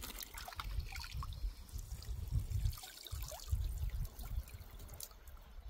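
Lake water trickling and splashing in small irregular spatters, over irregular low rumbles.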